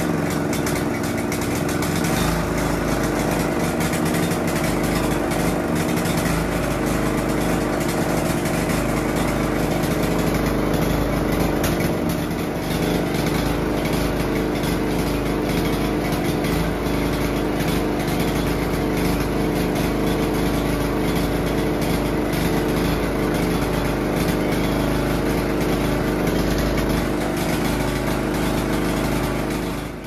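Walk-behind commercial lawn mower's gasoline engine running steadily.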